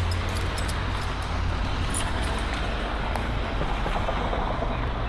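City street traffic: a steady low rumble of cars at an intersection.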